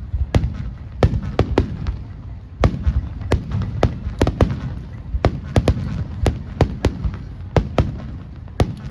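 Aerial fireworks bursting overhead: a rapid, irregular run of sharp bangs over a low rumble of echoing explosions.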